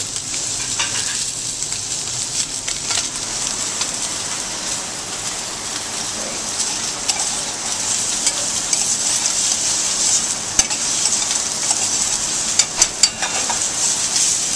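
Succotash of corn, beans and grape tomatoes sizzling in hot olive oil in a stainless steel saucepan, stirred with a metal spoon that scrapes and clinks against the pan, with a few sharp taps near the end.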